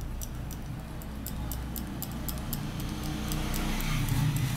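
Stiff-bristle paintbrush working acrylic paint in circles over a textured papier-mâché relief: a quick run of light ticks, about four a second, with a soft scrubbing near the end, over a steady low hum.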